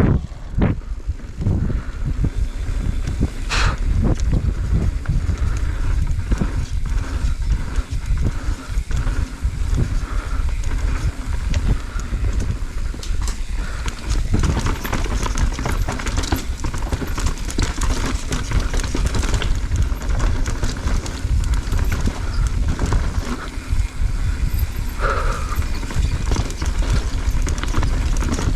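Bike ride down a rough, rocky trail heard from a helmet-mounted camera: a constant wind rumble with irregular knocks and rattles of the bike over rocks and roots.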